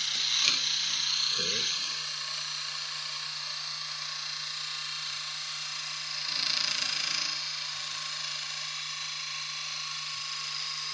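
Hurricane balls, a pair of welded steel ball bearings, spinning at high speed on a mirror with a steady high whir. The whir swells louder twice, near the start and about six seconds in, with a sharp click about half a second in.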